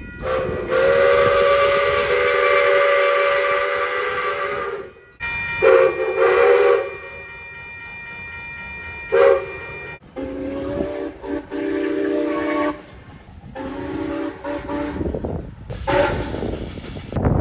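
A run of heritage train whistle and horn blasts, each a held chord of steady tones: a long blast of about four seconds, a double blast around six seconds in, a short toot near nine seconds, then two longer horn blasts from about ten seconds and two quick toots near the end, over a hiss of steam and train noise.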